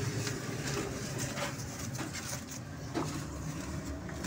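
Handling noise: a phone's microphone rubbing and knocking against cloth, a low rumble with scattered scrapes and clicks.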